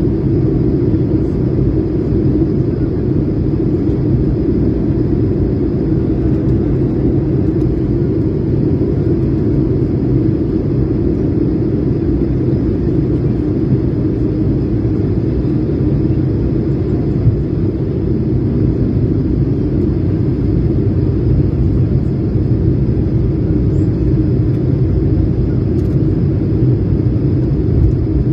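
Steady in-flight cabin noise of an Airbus A220-300 airliner with Pratt & Whitney PW1500G geared turbofan engines, heard from a window seat: an even, deep rumble with a faint thin high tone running through it.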